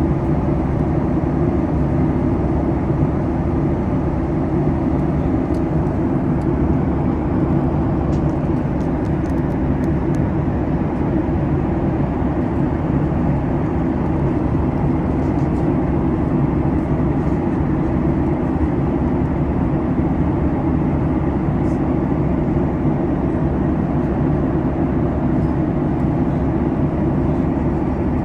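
Steady, unchanging low rumble of cabin noise inside a Boeing 737 MAX in flight: engine and airflow noise, heaviest in the low range.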